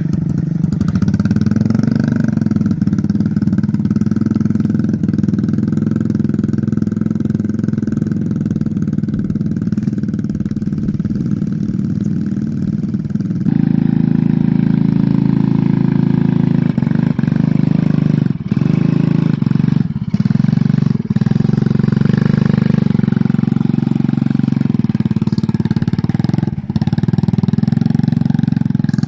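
A motorcycle engine running steadily, with an abrupt change in its sound about halfway through and a few short drops in level soon after.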